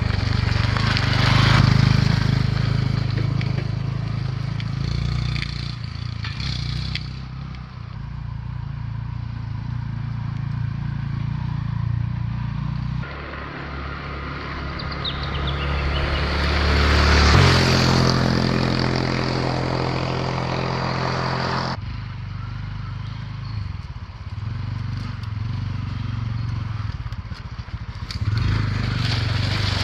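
Honda CT125 motorbike's single-cylinder four-stroke engine riding past on a gravel bush track, growing louder as it nears and fading as it goes by, with the tyres crunching over loose gravel. It passes at its loudest about a second in and again about halfway through. The sound changes abruptly twice, where the shot changes.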